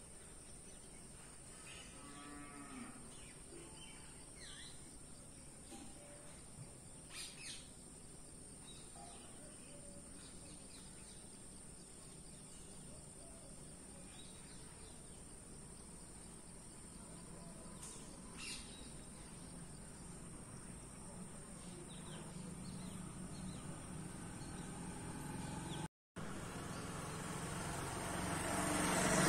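Faint rural outdoor ambience with a cow lowing once in the distance about two seconds in, over a steady high-pitched whine. Near the end a vehicle's noise swells as it approaches along the road.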